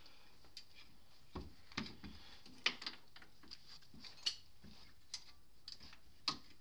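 About half a dozen light metal knocks and clicks as an Arctic Cat 650 H1's front differential housing is wiggled against the frame to work it off the drive-shaft spline.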